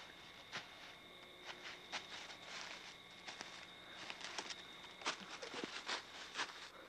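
Footsteps of a person walking through the woods, irregular scuffing and crunching steps that come more often in the second half.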